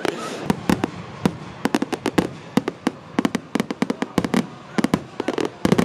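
Aerial fireworks crackling and popping: a run of sharp cracks at an irregular pace, several a second, some in quick clusters.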